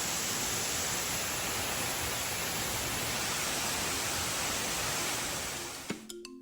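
Steady rush of a waterfall running with good flow. About six seconds in it fades away as mallet-percussion music comes in.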